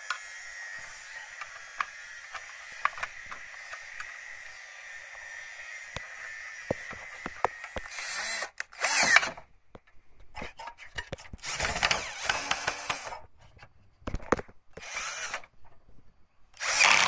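Cordless drill/screwdriver running in several short bursts on a screw in the fan capacitor's mounting bracket, starting about halfway in, after a faint steady hiss.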